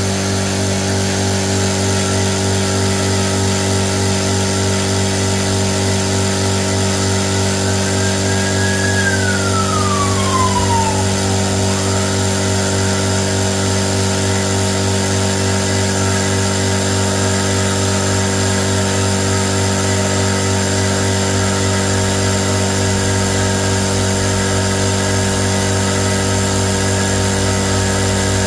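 Tagred TA3397 running steadily under test: an even, unchanging mechanical hum, with one higher tone sliding down in pitch about ten seconds in.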